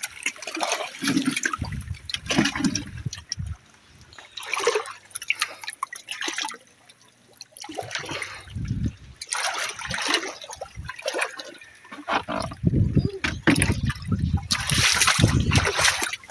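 Shallow seawater splashing and trickling among shore rocks as someone wades. Strong wind gusts buffet the microphone with low rumbles, heaviest in the last few seconds.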